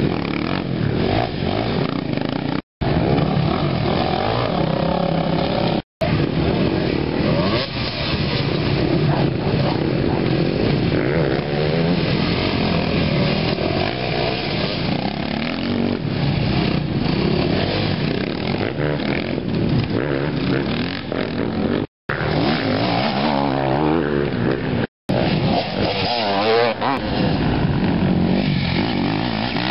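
Enduro dirt-bike engines revving up and down as riders climb over large tyres. The pitch rises and falls in repeated bursts, and the sound cuts out completely for a moment several times.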